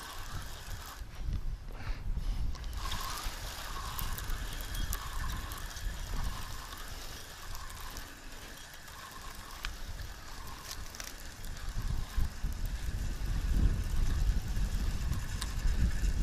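Wind buffeting the microphone as a low, gusting rumble that grows stronger near the end. Through it comes a faint call, repeated about once a second, and a few small clicks.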